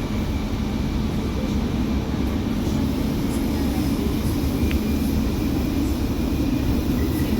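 Alstom Metropolis driverless metro train running at speed through its tunnel, heard from inside the carriage: a steady low rumble of wheels on track, with a faint high whine over it.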